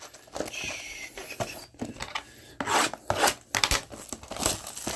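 Foil trading-card pack wrappers being opened: a run of short, irregular rasping rips and crinkles.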